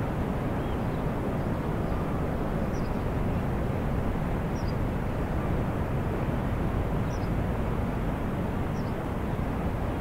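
Steady low rumbling noise, even in level throughout, with faint high chirps about every two seconds.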